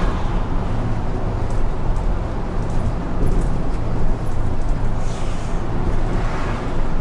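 Isuzu city bus on the move, heard from inside at the front of the cabin: a steady low engine drone with road and tyre noise.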